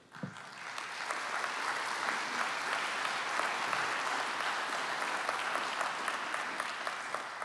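Audience applauding: many hands clapping, swelling over the first second, holding steady, then tapering off near the end.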